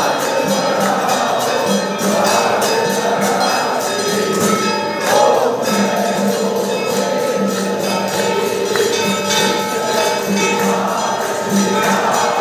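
Temple aarti music: jingling bells and clashing hand cymbals struck in a steady rhythm, with voices of devotees singing along.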